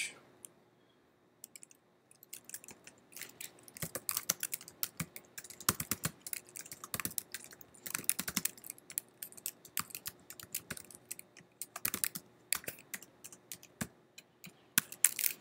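Typing on a computer keyboard: quick, irregular runs of key clicks with short pauses, starting about a second and a half in.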